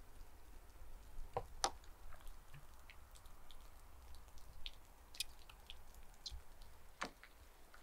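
Faint wet squishing and scattered small clicks of hands pulling cooked beluga sturgeon head meat apart and dropping the pieces into an enamel basin, with sharper clicks twice, about one and a half seconds in and near the end.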